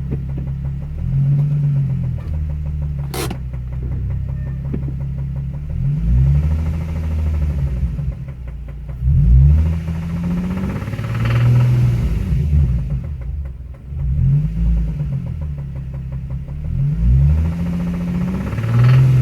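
Nissan 350Z's 3.5-litre V6 idling and blipped repeatedly, the revs rising and falling about every two to three seconds, with a sharp click about three seconds in. The engine has a knock that the owner takes as a sign it needs a rebuild.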